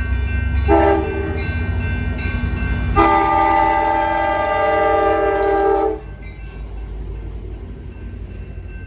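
Multi-tone train horn sounding a chord: a short blast about a second in, then a long blast of about three seconds, over a low rumble.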